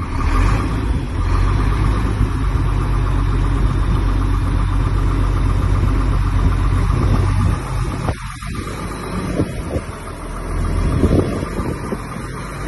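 Diesel engine of an IVECO crane truck idling steadily, heard in the cab, with a constant hum above the rumble. About eight seconds in, the sound drops and turns more uneven.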